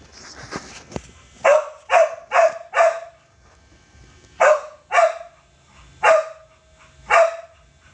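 A dog barking: four quick barks in a row, then four more single barks spaced about a second apart.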